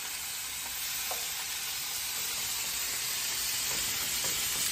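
Stir-fry vegetables sizzling steadily in a hot frying pan on high heat, a dash of water just added to make steam, with a wooden spatula stirring them and knocking lightly a few times.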